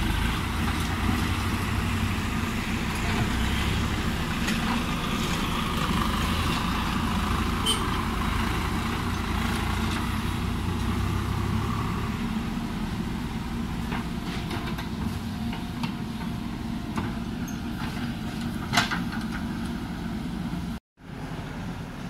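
JCB 3DX backhoe loader's diesel engine running steadily as the backhoe digs. The low rumble eases about halfway through, a single sharp knock comes near the end, and the sound drops out for a moment just before the end.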